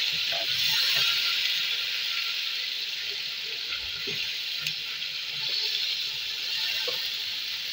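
Browned onions with ginger-garlic paste and a splash of water sizzling steadily in hot oil in an aluminium pot, with a few light scrapes of a spatula as it is stirred.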